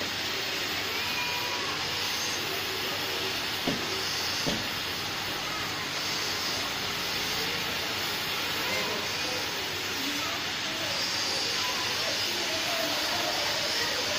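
Oxy-fuel gas cutting torch hissing steadily as it cuts through steel plate, with two brief sharp sounds about four seconds in.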